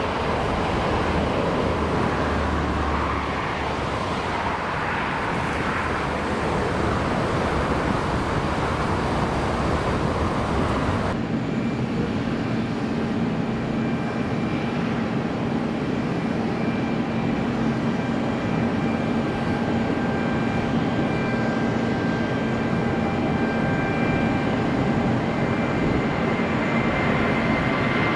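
Jet airliner noise in two parts. First a four-engined Airbus A380 rolls out after touchdown with a steady rushing roar. About 11 s in it cuts abruptly to a twin-engined Airbus A330 on its takeoff roll, its engines at takeoff power with a steady whine over the roar.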